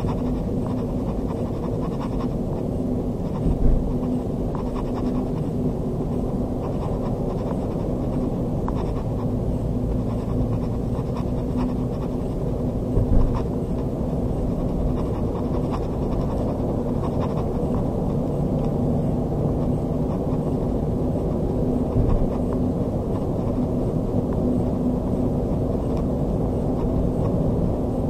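Steady road and engine noise inside a moving car's cabin, with a brief thump about 4 seconds in and another about 13 seconds in.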